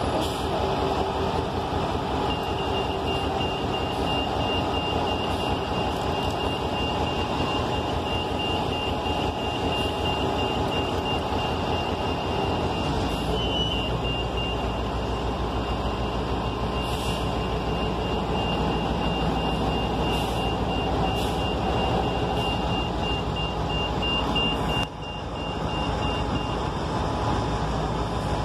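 Diesel city transit buses idling at the curb, a steady engine drone. A thin high-pitched electronic tone runs through most of it and breaks into short beeps near the end. The low rumble grows heavier about halfway through.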